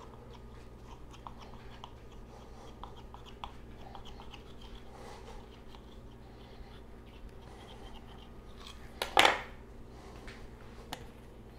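Paring knife cutting pie dough into strips on a tile countertop: faint small ticks and scrapes of the blade against the tile. About nine seconds in, a single louder clatter as the knife is set down on the tile.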